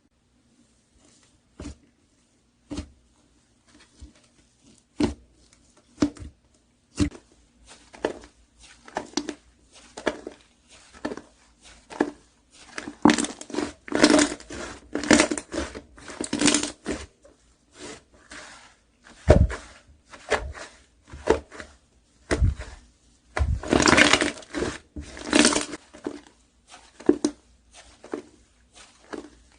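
Slime being pressed, poked and stretched by hand, giving sticky pops and clicks. They come one at a time about once a second at first, then thicken into runs of crackling around the middle and again near the end.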